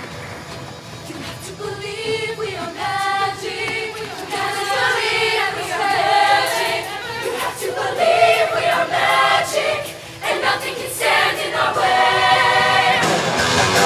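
High school show choir singing in harmony, growing louder as it goes, with a brief dip a little after halfway.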